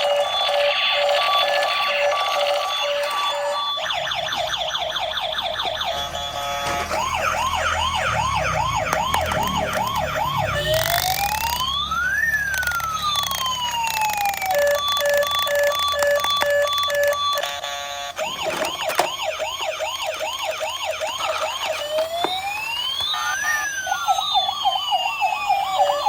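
Electronic toy siren from a small speaker, switching between patterns: a high-low two-tone, a fast warbling yelp, and a slow wail that rises and falls. The patterns repeat twice over the stretch.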